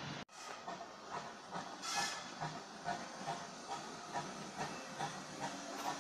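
Steam locomotive hissing steam, with soft regular beats about three a second and a louder gush of hiss about two seconds in.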